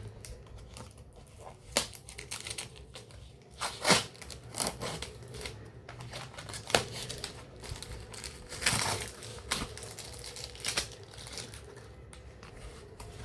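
Plastic packaging around a CD being handled and pulled off: irregular crinkling and tearing, with a few sharp louder crackles.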